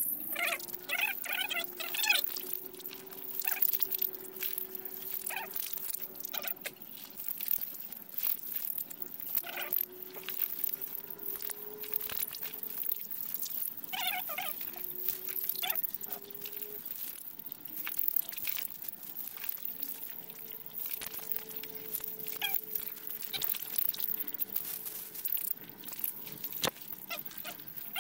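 Young chicks peeping in short, scattered calls while being handled for mouth-drop vaccination, with small clicks and rustles of handling. A faint low hum with a slowly sliding pitch runs underneath.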